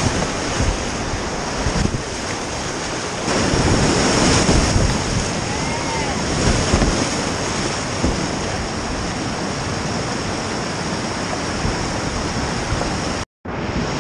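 Whitewater rapids rushing and churning around a kayak, heard up close from the boat as it paddles through the white water. The sound cuts out for a moment about a second before the end.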